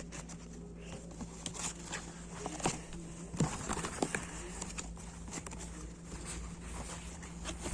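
Handling noise: scattered soft clicks, taps and rustles over a steady low hum.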